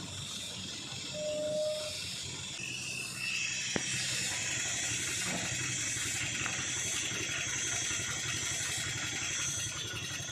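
Steady running noise of a truck on a climb with an even hiss over it. A brief whistle-like tone sounds twice early on, and there is a single click about four seconds in.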